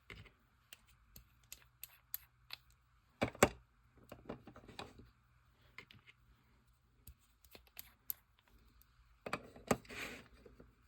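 Small gel polish bottles being picked up and set down on a tabletop: a string of light clicks and taps, with louder knocks about three seconds in and again near the end.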